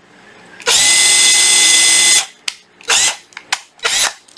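Panasonic EZ7441 cordless drill-driver's motor run up to full speed for about a second and a half with a steady whine, then released and winding down. It is followed by a few short blips of the trigger near the end, a speed check of the variable-speed trigger.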